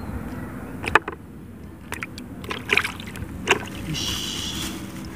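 Water splashing in a plastic bucket as a small caught fish goes in among the others: a few short, sharp splashes about a second apart.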